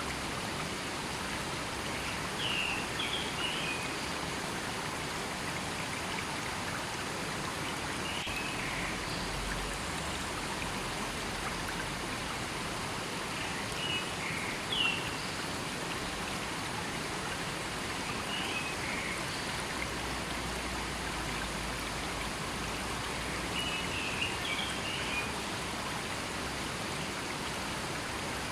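A river flowing steadily over rocks, a constant rush of water, with short high chirps every few seconds.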